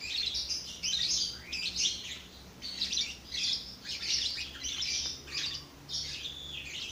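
Many small birds chirping and twittering without a break, a dense run of short, overlapping high calls.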